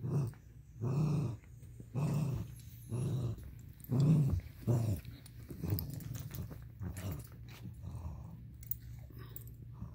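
Small dog growling in play during a tug-of-war with a plush toy: a run of short growls about once a second, growing weaker in the second half.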